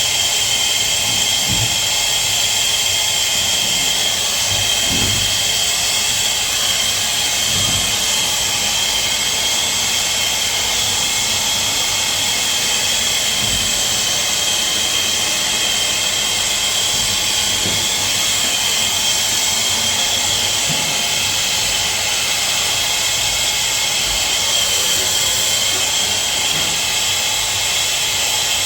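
Handheld gas torch burning with a steady hiss as it heats a 1-inch copper water main joint for soldering.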